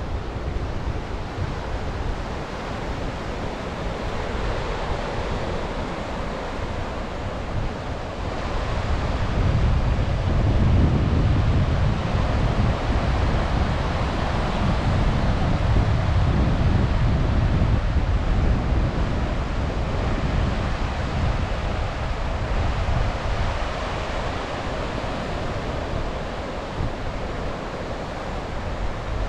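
Sea waves washing onto the beach with wind buffeting the microphone, a steady rushing noise that swells louder with a low rumble for about ten seconds near the middle.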